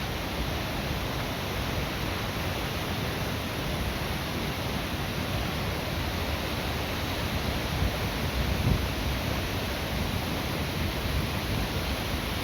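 Jōren Falls, a waterfall, pouring steadily: an even, unbroken rush of falling water.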